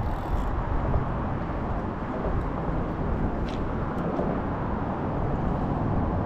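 Steady rumbling noise with no single distinct sound standing out, and one faint tick about halfway through.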